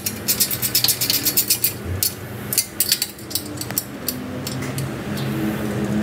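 Hand tool clicking against the small countersunk cap screws and steel bracket as the exhaust mounting bracket hardware is done up on a kart chassis: a quick run of metal clicks, about seven or eight a second, for roughly two seconds, then a few scattered clicks.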